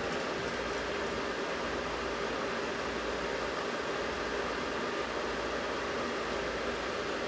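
Steady, even whirring hiss of a small fan running, with a faint constant hum under it.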